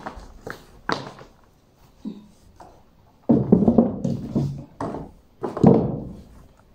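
Books being handled and set onto the shelves of a book display stand: a series of knocks, taps and paper rustles, loudest about three seconds in and again near six seconds.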